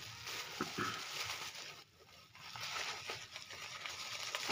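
Plastic bubble wrap rustling and crinkling in the hands as a wrapped item is turned over and unwrapped, with a short lull about two seconds in.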